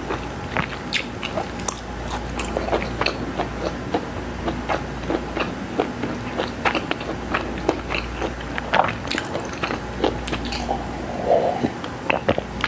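A person drinking water in long, continuous gulps from a glass, heard as an irregular run of swallowing clicks and gulps, a few each second, close-miked on a clip-on microphone.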